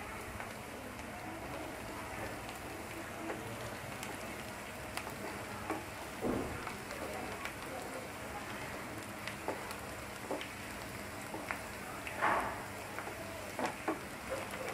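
Sliced onions frying in hot oil in a pan: a steady sizzle full of small crackles, with a couple of louder crackles about six and twelve seconds in. The onions are being browned.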